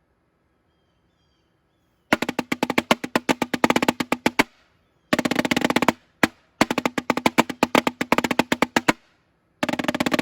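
Snare drum played with sticks in fast runs of rapid strokes, starting about two seconds in. The playing comes in several bursts separated by short pauses, with one lone hit in the middle.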